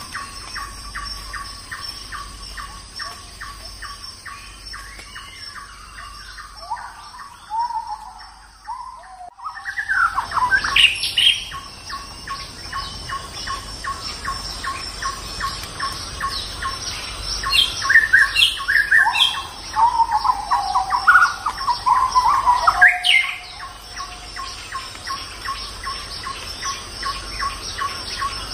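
Birds chirping and calling in clusters of quick rising and falling notes, over a steady background of rapid even ticking, about four a second. The calls are loudest a third of the way in and again past the middle.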